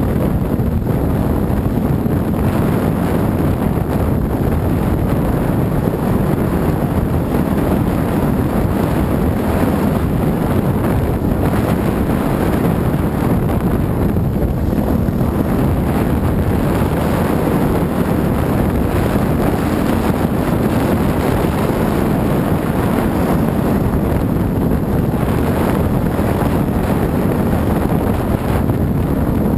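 Dirt bike engine running steadily while riding a forest trail, heavily mixed with wind buffeting on the camera microphone.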